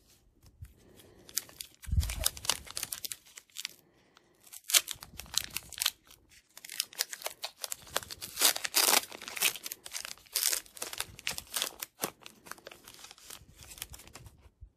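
A trading-card booster pack wrapper crinkling and tearing open by hand: a long, uneven run of crackles, with a low thump about two seconds in.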